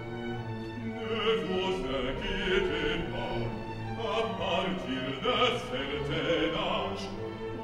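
Opera: a male singer sings a line in French over orchestral accompaniment, his voice coming in about a second in over sustained orchestral chords.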